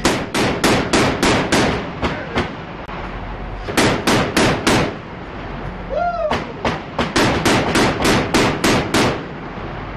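A shipboard automatic gun fires three bursts of heavy single shots, about four or five a second: a burst of about ten, a short burst of five, then a longer burst of about a dozen.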